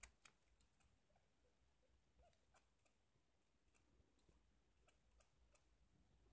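Parrot grinding its beak: faint, irregular clicking and scraping with a few tiny squeaks. Beak grinding is usually the sign of a relaxed, content bird settling down.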